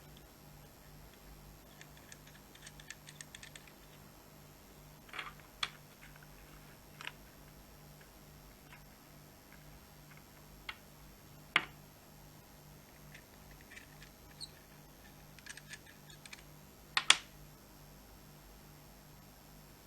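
Small hard parts of an e-cigarette starter kit being handled: scattered light clicks and taps, including quick runs of little clicks, with a sharper knock midway and another near the end.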